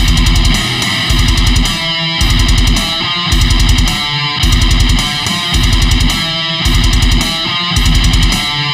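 Heavy metal instrumental: distorted electric guitar and bass playing heavy, chugging riffs in a steady rhythm, with low hits about once a second.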